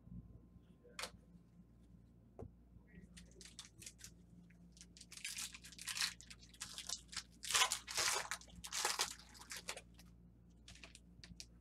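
Foil trading-card pack wrappers crinkling and tearing as packs are opened, in a run of crackling bursts through the middle, loudest about eight seconds in.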